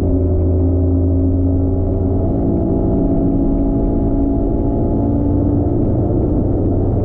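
Bass boat outboard motor running steadily at speed, a loud continuous drone.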